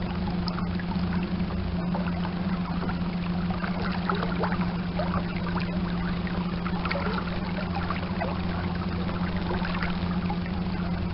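Electric trolling motor humming steadily as the small boat moves slowly, with water trickling and lapping against the hull.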